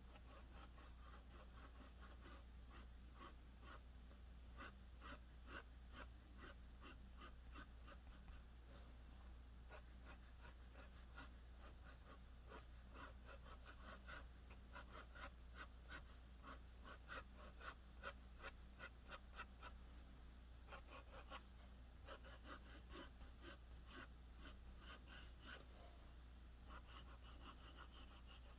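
Faint scratching of a graphite pencil on paper. Quick, short strokes come several a second with brief pauses, as hair strands are hatched in.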